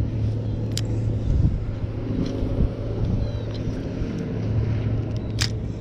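Wind buffeting the microphone: a steady low rumble. Two short sharp clicks cut through it, one about a second in and one near the end.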